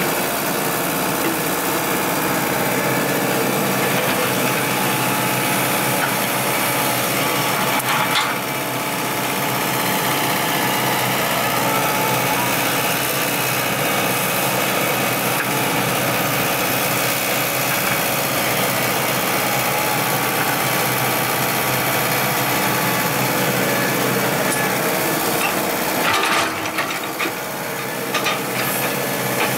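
Komatsu hydraulic excavator running steadily under work while it grades soil, with brief louder scraping or knocking noises about eight seconds in and again near the end.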